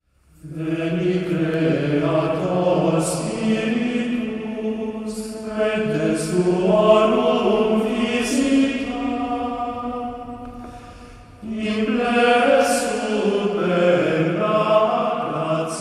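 Choir singing a slow chant in long, held phrases. The voices fade away about ten seconds in and start a new phrase a moment later.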